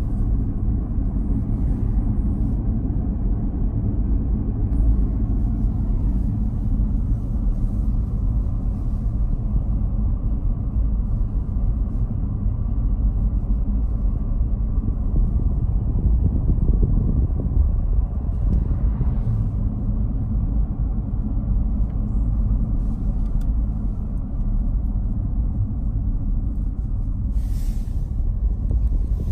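Steady low road rumble inside a moving car's cabin: tyre and engine noise while driving on a highway.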